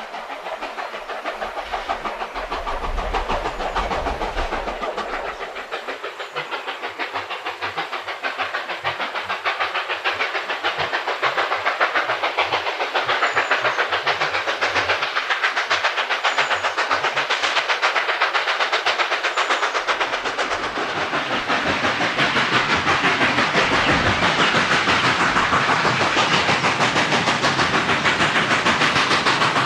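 Steam locomotive sound for an HO scale model steam engine: a fast, even run of exhaust chuffs over hissing steam, getting louder in the second half.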